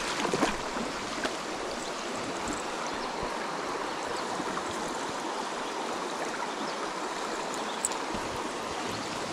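Shallow rocky creek running over stones: a steady rush of flowing water, with a few short knocks, the loudest about half a second in.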